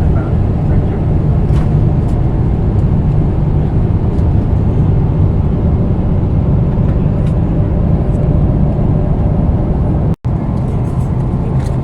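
Steady cabin noise of a Boeing 777-200ER in flight: a low, even rumble of engines and airflow heard from an economy seat. The sound cuts out for an instant about ten seconds in.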